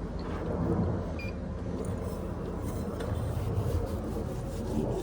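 Steady low rumble of a high-pressure drain jetter's engine and pump running.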